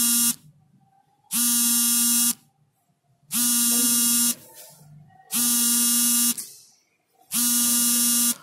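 An electronic buzzer sounding in a steady on-off pattern: a buzzy, even-pitched beep about a second long, repeating every two seconds, heard five times.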